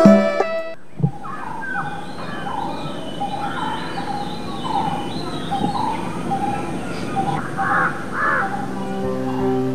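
Many birds calling at once, short overlapping chirps and calls, as a wild outdoor ambience. Background music cuts out just before it and comes back in near the end.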